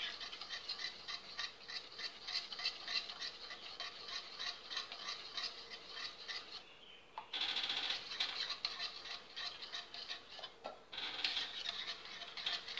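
Metal spoon stirring in a ceramic bowl, clicking against its sides in a quick steady rhythm of several strokes a second, with a short pause about halfway. The country sugar is being stirred in to dissolve in thick colostrum milk.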